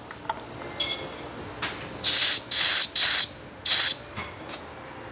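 A metallic clink with a short ring about a second in, then four short blasts of compressed air hissing in quick succession, from an air line or blow gun.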